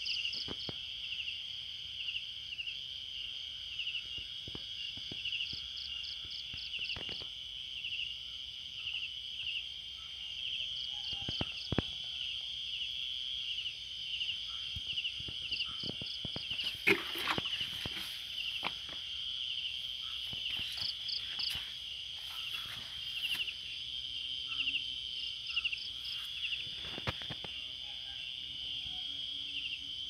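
Crickets chirping in a steady high chorus, with short bursts of rapid pulses from another insect repeating every few seconds. Scattered clicks and rustles are mixed in, with a cluster of them a little past halfway.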